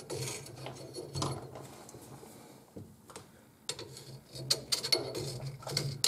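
A long metal screwdriver scraping and clicking against the inside of a metal drain pipe as it dislodges hair and gunk. The scrapes are irregular, with a quieter stretch in the middle and a quick run of sharp clicks near the end.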